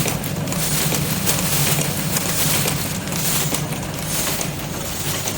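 Automatic string-light soldering machine running: a dense, continuous mechanical clatter of rapid clicks over a steady low hum.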